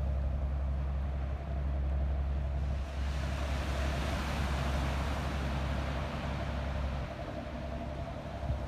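Wind rumbling on the microphone over surf washing onto a pebble beach, the wash swelling and easing, with a steady low hum underneath.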